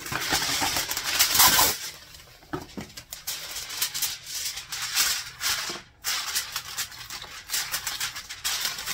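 Aluminium foil crinkling and crackling as a sheet is handled and pressed down over a baking sheet. It is loudest in the first two seconds, then goes on in smaller crackles.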